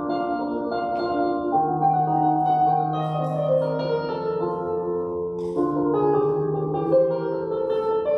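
Electronic keyboard with a piano voice playing slow, sustained chords that change every second or two.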